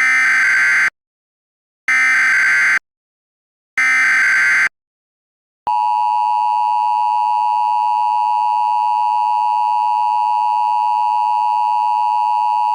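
Emergency Alert System signal: three identical short data bursts of SAME header tones, about a second apart, then a steady EAS attention tone that begins about six seconds in and keeps sounding.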